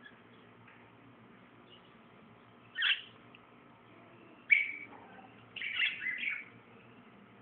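Eye-ring African lovebirds calling in short, sharp chirps: one about three seconds in, another a second and a half later, then a quick run of several chirps.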